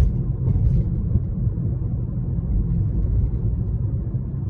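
Steady low rumble of a moving vehicle: engine and road noise heard from inside it while it drives.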